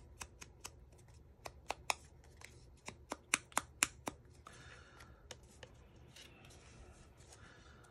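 Foam ink dauber dabbed and rubbed along the edges of small cardstock pieces, with paper being handled: a scatter of light sharp taps, a quick run of louder ones around three to four seconds in, and soft rubbing and rustling between.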